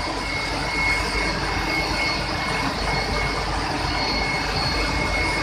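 Steady industrial noise of a sugar mill's boiler and pump area: a constant machinery drone with a thin, steady high-pitched whine over it.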